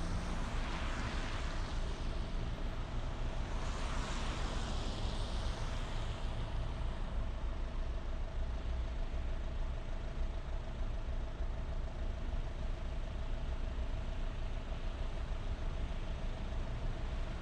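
Steady running noise of a moving road vehicle heard from inside: a low engine and tyre rumble with a faint steady hum. Two rushing swells rise and fade in the first six seconds.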